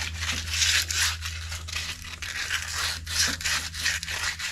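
Rust being scrubbed by hand off a steel trailer-hitch pin: repeated short abrasive strokes.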